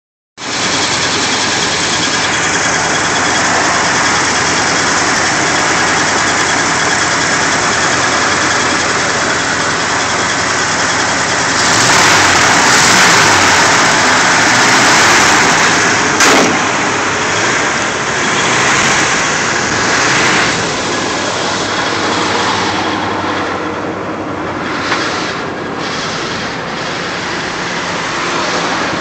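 1972 Ford F-250's V8 engine running at idle with the hood up. It gets louder for a few seconds near the middle, with a single sharp click just after.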